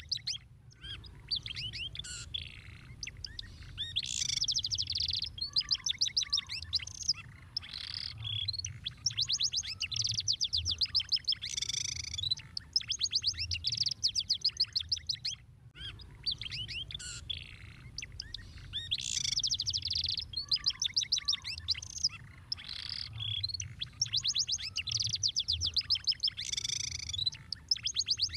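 Domestic canary singing a long, continuous song of fast trills and rolling phrases, high-pitched, with short pauses between phrases. The same song sequence starts over about halfway through, a looped recording, over a faint low hum.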